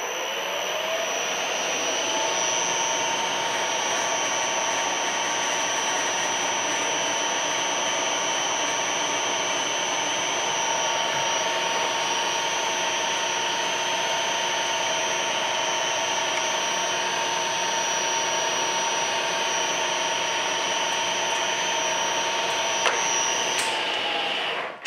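Sharp LMV50 vertical mill's spindle spinning up over the first couple of seconds and then running steadily with a high whine while a twist drill bores into a brass bar. It shuts off and stops just before the end.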